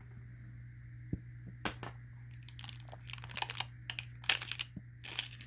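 Parts of an Israeli 4A1 gas mask being handled and pulled apart by hand: scattered clicks and crinkling rustles, thickest in the second half, over a steady low hum.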